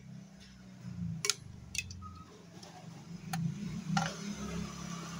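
A few light, sharp plastic clicks and taps, four or so spaced out, from a toy fishing rod and plastic toy fish being handled.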